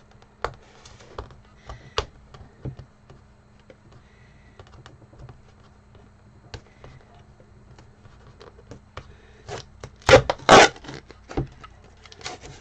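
Cardboard shipping tube being handled on a stone counter: scattered light taps and rubbing as hands pick at the tape on its end, then two loud scraping noises about ten seconds in.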